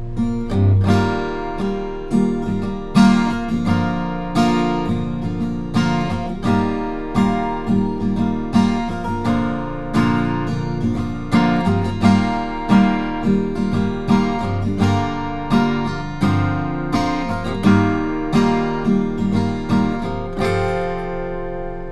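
Acoustic guitar strumming a chord progression in a steady rhythm, miked through a Quad Eight 7501 channel strip preamp with its EQ set flat.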